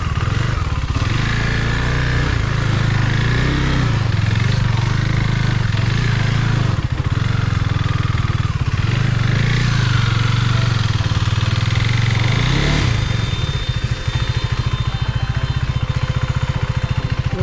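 KTM 390 Duke's single-cylinder four-stroke engine running under way, its revs rising and falling. About thirteen seconds in it drops to a lower, slower pulsing beat as the throttle eases off.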